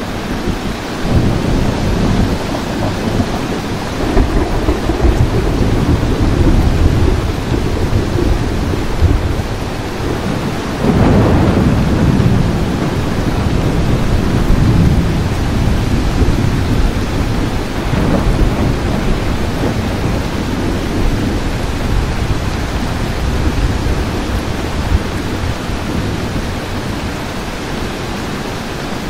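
Steady rain falling with low, rolling thunder underneath; a louder thunder roll breaks in about eleven seconds in, and a weaker one swells a few seconds later.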